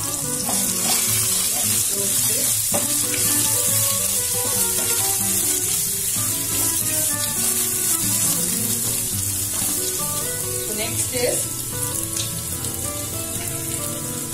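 Ridge gourd peels and chunks sizzling in hot oil in a kadai with fried chana dal, stirred with a spatula. Background music plays underneath.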